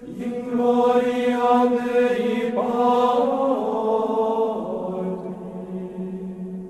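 Sung chant: voices holding long notes that step from one pitch to the next, growing quieter near the end.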